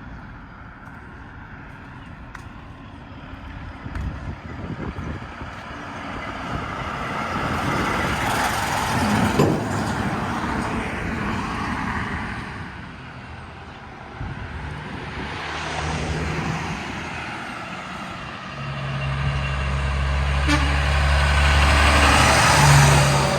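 Heavy trucks passing on a road one after another, their engine and tyre noise rising and fading as each goes by. The last and loudest, near the end, has a deep steady diesel engine drone.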